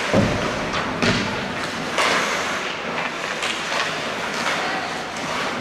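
Ice hockey play: skates scraping on the ice, with several sharp knocks roughly a second apart, the loudest in the first two seconds.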